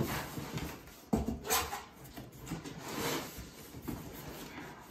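Cardboard shipping box being handled and its flaps pulled open, with rustling and scraping of the cardboard and a couple of sharper knocks about a second in.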